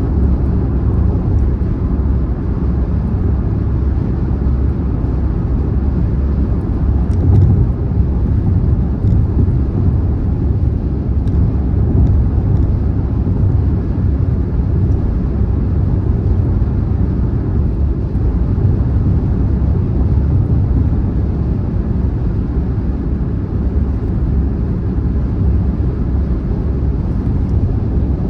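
Steady road noise of a car driving on a motorway: a constant low rumble of tyres and engine at cruising speed.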